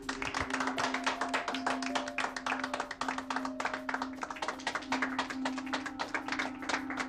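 A group of people applauding: quick, irregular claps that start suddenly and keep going, over background music holding one steady low note.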